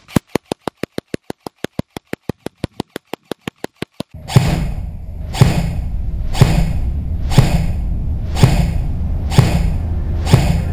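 Ares M45 airsoft electric gun (AEG) firing a rapid, evenly spaced string of shots, about eight a second, for about four seconds. Then dramatic intro music with heavy bass and a hit about once a second.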